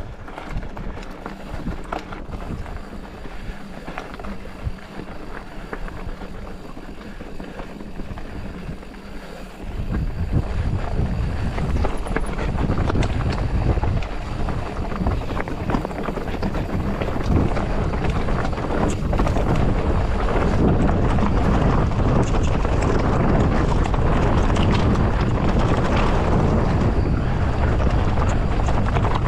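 Mountain bike coasting downhill on a rocky dirt trail: tyres rolling and rattling over rock, with wind rushing over the microphone. The wind rumble gets much louder about ten seconds in and stays loud.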